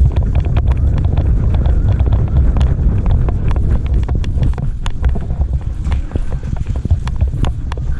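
Irregular footsteps and knocks, with a heavy low rumble of wind buffeting the microphone.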